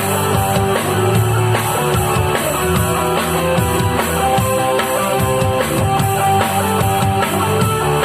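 Live band playing an instrumental break in a gospel song between sung verses, with a drum kit keeping a steady beat under guitar.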